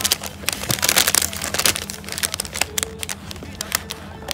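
Plastic courier mailer bag crinkling and rustling as it is handled and cut open with scissors, densest in the first two seconds.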